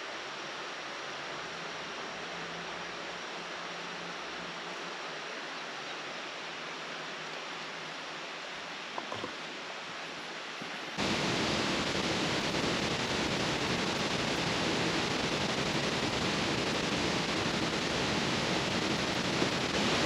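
Steady rush of flowing creek water, which becomes markedly louder and closer about eleven seconds in and then holds steady.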